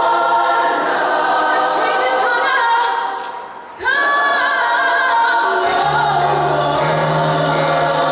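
Large children's choir singing in harmony. The sound fades away a little past the middle, then the full choir comes back in at once, and a low held note joins underneath near the end.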